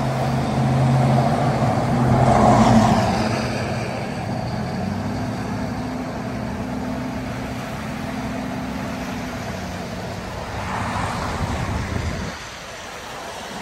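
Road traffic: car engines running, with two vehicles passing close and their tyres hissing on the wet pavement, about two seconds in and again about eleven seconds in. The engine hum drops away near the end.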